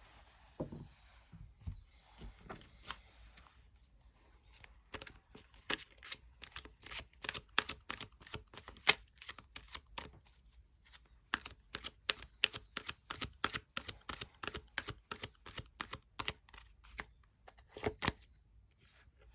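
Tarot cards being handled and shuffled: a long run of sharp card clicks and slaps, a few a second, sparse at first and then dense.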